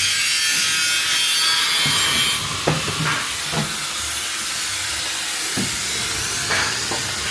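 Power saw cutting wood at a construction site: a loud, high-pitched whine that stops suddenly about two seconds in, leaving a quieter hiss with faint distant voices.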